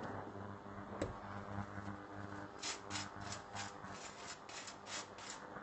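A table knife scraping butter across English muffin halves in a run of short, quick strokes, thickest in the second half, with one sharp click about a second in.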